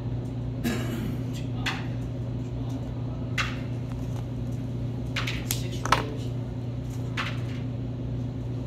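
Felt-tip marker drawing on a cardboard toilet-paper roll, with small handling noises: a handful of short scratchy strokes and taps, the sharpest about six seconds in, over a steady low room hum.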